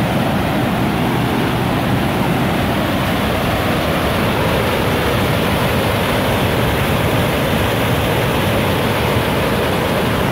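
Steep whitewater cascade on a mountain creek swollen with snowmelt runoff, rushing steadily.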